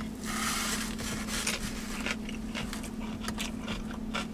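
Eating sounds: chewing with many short clicks and scrapes of a plastic fork picking at food in a takeout container, over a steady low hum.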